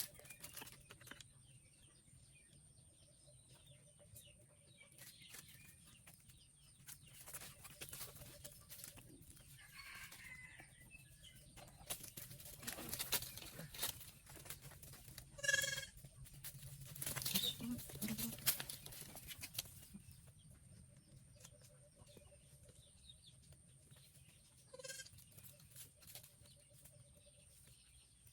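Goats bleating briefly: one short call about halfway through and a fainter one near the end, with bouts of rustling noise in between.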